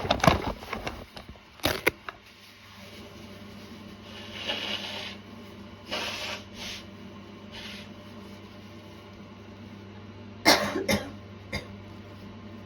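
A woman coughing from a sore throat at the onset of a cold, still a light cough. A short fit of coughs opens, with a single sharp cough about two seconds in and breathy inhales between. Another burst of two or three coughs comes near the end.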